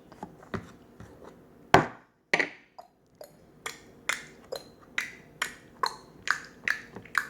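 A spoon striking and stirring homemade slime mixture: two loud knocks a little under two seconds in, then a steady run of quick strokes about twice a second.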